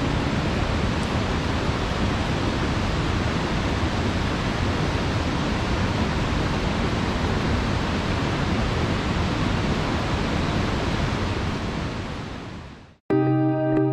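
Steady rushing of a waterfall that fades out near the end, followed by plucked guitar music.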